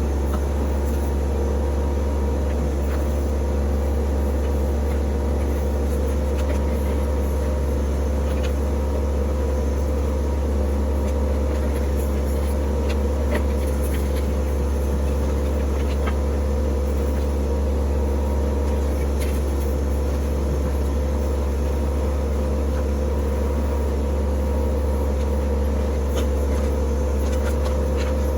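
TYM T264 compact tractor's diesel engine running at a steady speed, with a few faint clicks over it.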